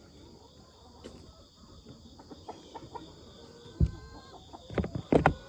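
Chickens clucking softly, with scattered faint clicks, then a sharp knock near the end followed by a short run of knocks.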